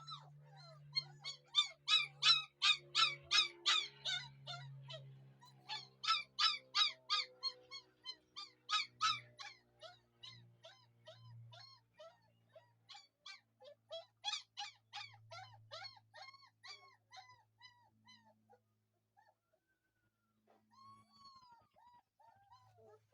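German shepherd puppies crying and whimpering: a rapid string of short, high-pitched squeals, several a second. They thin out and fade about three-quarters of the way through, with a couple of last calls near the end. A low steady hum runs underneath.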